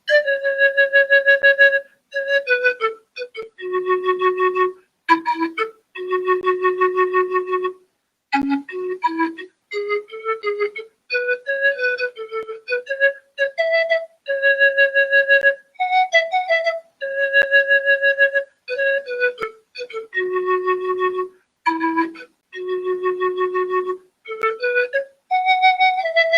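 A solo wind instrument playing a slow melody in short phrases, with long held notes and brief pauses between them.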